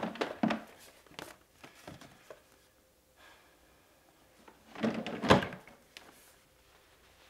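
Plastic storage drawer sliding open at the start, a few small clicks and knocks, then the drawer pushed shut about five seconds in, the loudest sound.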